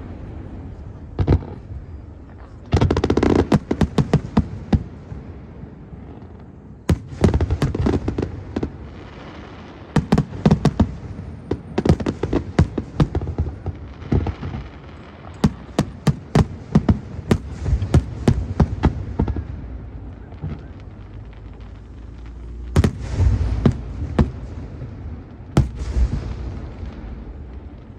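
Fireworks display: aerial shells bursting with sharp bangs and dense crackling, coming in clusters of rapid reports with short lulls between them.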